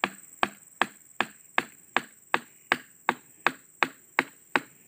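A hammer tapping a PVC pipe into a hole drilled in an oil palm trunk, in a steady rhythm of about two and a half sharp knocks a second. The pipe is being seated as a permanent port for injecting liquid fertiliser into the trunk.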